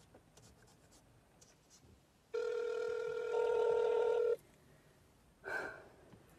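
Ringback tone of an outgoing phone call heard over a phone's loudspeaker: one steady ring lasting about two seconds, starting about two seconds in, the call not yet answered. A short, softer sound follows near the end.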